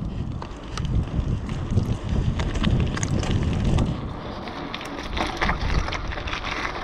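Wind buffeting the action camera's microphone as a mountain bike rolls fast over rough, cracked concrete, with tyre rumble and scattered clicks and rattles from the bike. The rumble is strongest between about one and four seconds in, then eases to a steadier level.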